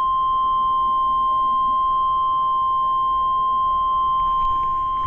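NOAA Weather Radio warning alarm tone: a single steady beep near 1 kHz, held without a break over faint radio static, with a few faint clicks near the end. It is the attention signal that precedes a broadcast severe weather warning.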